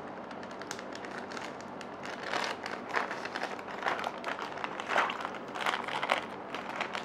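Clear plastic zip-top bag crinkling and rustling as it is handled, sealed and shaken to mix lemon drink powder into water. The crinkles come in irregular bursts, louder from about two seconds in.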